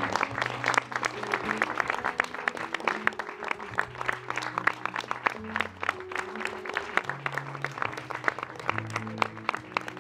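An audience applauding, with the separate claps distinct, over quiet background music of slow held notes.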